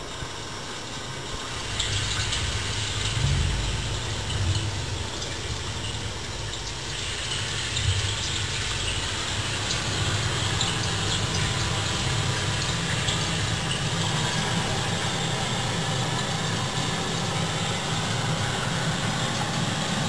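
Steady rushing of running water with a deep low rumble, played over loudspeakers in a room. It grows louder about two seconds in.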